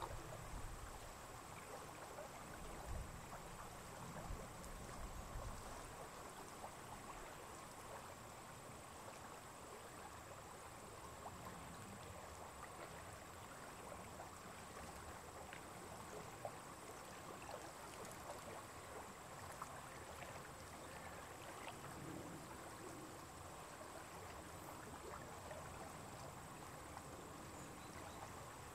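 Faint, steady outdoor lakeside ambience: a quiet hiss with two thin steady high tones, and soft low rumbles in the first several seconds.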